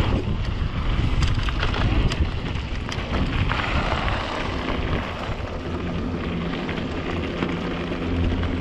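Rocky Mountain Slayer mountain bike riding down a dirt trail: tyres running over rough ground, with knocks and rattles from the bike and wind buffeting the camera microphone. A steady low hum sets in about halfway through.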